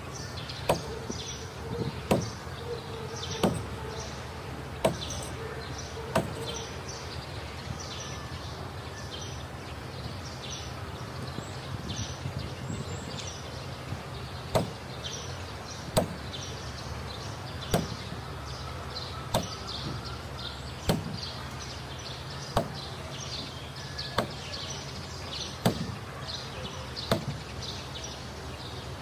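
Mallet blows on the planking of a wooden boat hull under construction, single sharp strikes about one every second and a half, with a pause of several seconds in the middle, as a hull plank is knocked into place.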